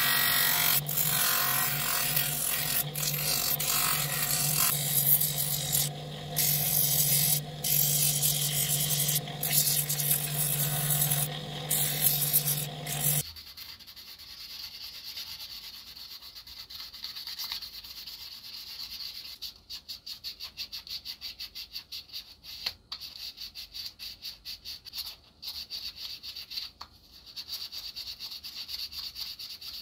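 A bench power tool running steadily with a low motor hum and grinding noise against metal, stopping abruptly about a third of the way in. It is followed by quieter rubbing of metal that turns into rapid, even hand strokes, like filing or sanding.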